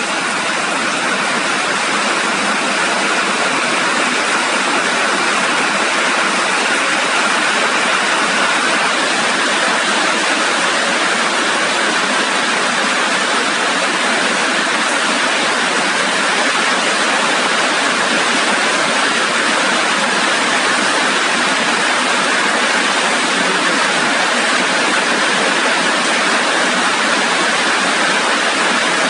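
Heavy rain falling, a loud, steady hiss with no let-up.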